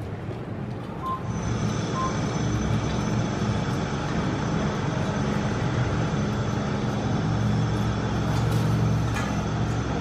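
A motor vehicle's engine running with a steady low drone, getting louder about a second in and holding. Two short beeps a second apart sound near the start.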